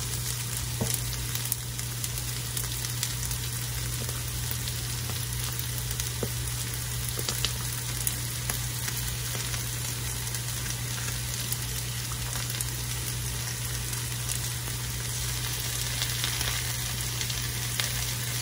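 Diced onions frying in oil in a wok, a steady sizzle, with a steady low hum underneath.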